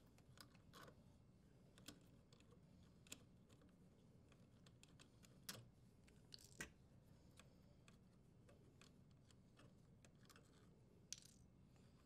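Scattered faint clicks and ticks of plastic wire nuts being untwisted and wires handled in a sheet-metal electrical junction box, with near silence between them.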